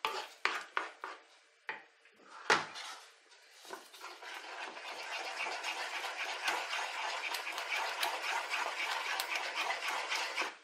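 Wooden spoon knocking a few times against a nonstick frying pan, then scraping steadily round the pan as it stirs a thick béchamel sauce.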